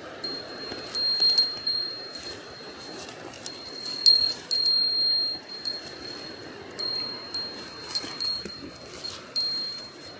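A metal bear bell jingling as its wearer walks, struck in uneven clusters; each strike rings on with one clear high tone.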